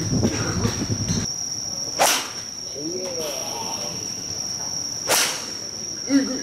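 Two sharp cracks of a golf iron striking the ball, about three seconds apart, over a steady high-pitched trilling of night insects.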